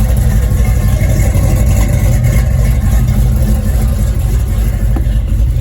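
An LS-swapped 5.3-litre V8 running steadily at a loud, even pitch. The engine is freshly swapped and not yet tuned.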